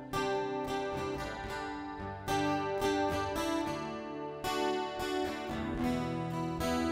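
Acoustic guitar strumming chords, each struck every second or two and left to ring.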